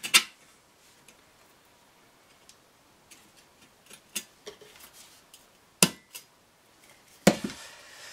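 A few sharp metallic clicks and taps, a second or more apart, from a thin tin being pierced with a small pin and handled.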